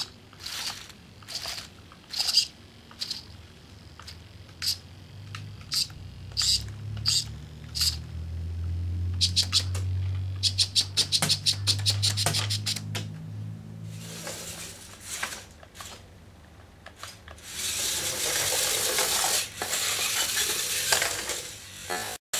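Homemade robot's motor-driven rubber-band firing mechanism working: a series of sharp clicks, one to two a second, as the rotating holder lets go of the stretched bands, then a low motor hum with a fast run of clicks. Near the end, a stretch of steady noise from the robot's drive motors and wheels on the tile floor.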